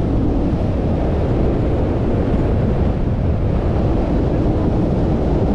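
Steady wind noise on the microphone, with water rushing past a moving motorboat and its motor running underneath.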